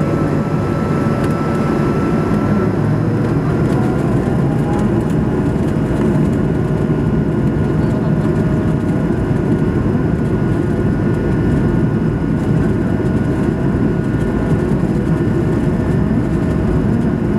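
Cabin noise inside an Airbus A220-300 as it taxis slowly on the runway: its Pratt & Whitney PW1500G geared turbofans run steadily at low power under a broad rumble, with a few faint thin whining tones and no spool-up.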